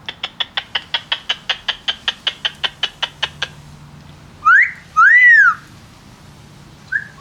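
Amazon parrot vocalising: a fast, even run of sharp clicks, about five a second, for the first three and a half seconds. Then two loud whistles, the first rising and the second rising and falling, with another whistle starting near the end.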